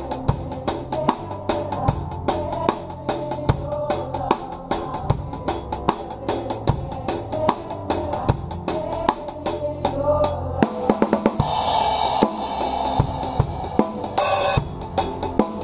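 Drum kit playing a swung, broken half-time shuffle, miked close from the drummer's seat, with the band's music under it. A cymbal crash rings out about ten and a half seconds in, and another shortly before the end.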